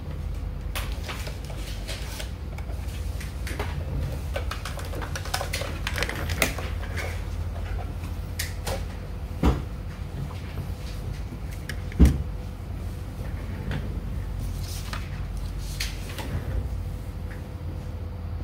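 Scattered small clicks and knocks from hands handling a laptop on a table, with two louder thumps about nine and a half and twelve seconds in, over a steady low hum.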